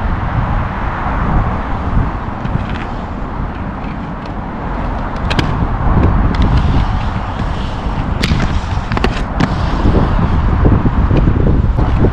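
Inline skate wheels rolling over concrete ramps, a steady low rumble, with sharp clacks of skates striking the concrete and ramp edges several times from about five to nine and a half seconds in.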